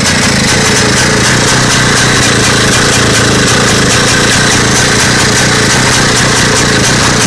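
A vintage two-stroke motorcycle engine running steadily and loudly on its homemade electronic ignition, made from a chainsaw or strimmer magneto, with an even pulse. The engine runs now that the ignition timing is set at 5 mm before top dead centre.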